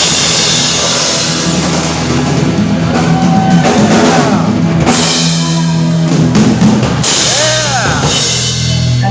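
Live heavy metal band playing loud, with a full drum kit, bass drum and cymbals and distorted guitars bending notes. The music stops right at the end.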